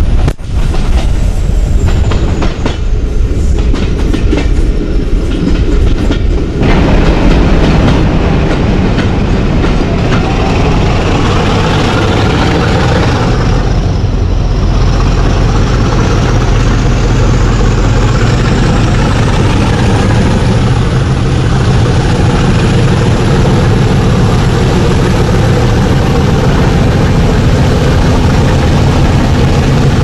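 Class 50 diesel locomotive's English Electric 16CSVT V16 engine working hard ahead of the coach, mixed with wind buffeting and wheel clatter. About six and a half seconds in the train enters a tunnel and the sound becomes fuller and echoing, with a high whine slowly rising in pitch.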